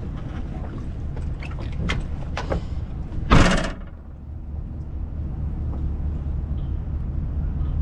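Low, steady rumble of an idling vehicle engine, with a few faint clicks and one loud, short knock-and-rattle about three and a half seconds in.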